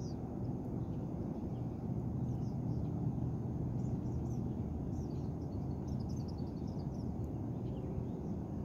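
Small birds chirping in scattered short high calls, busiest about halfway through, over a steady low rumble.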